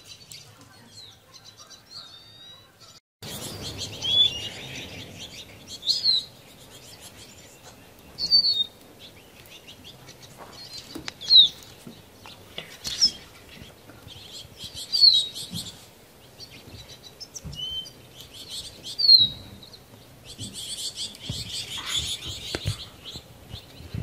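Small songbirds calling: a sharp, falling chirp every two seconds or so among quick twittering.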